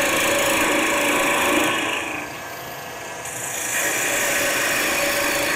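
Gouge cutting maple spinning on a wood lathe: a steady shearing hiss that eases off for a second or so about two seconds in, then resumes. The turners hear something in the wood as it is cut and take it for a crack creeping through the timber.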